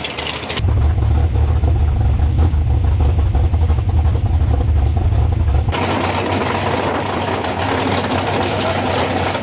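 Drag race car engines idling in the staging lanes. From about half a second in to near six seconds in the engine is heard close up as a deep, muffled rumble, then from trackside as a brighter, steady running sound.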